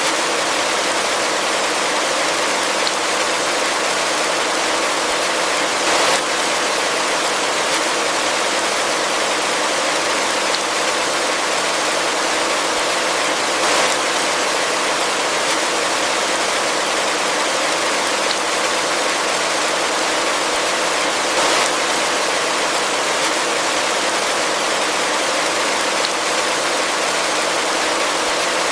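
Heavy rain falling steadily, a dense even hiss with little low end. Three brief louder splashes come about every eight seconds.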